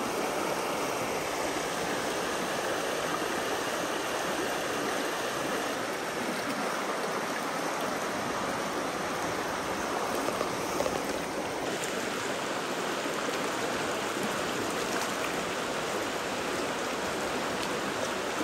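Rain-swollen stream flowing steadily over rocks and stones.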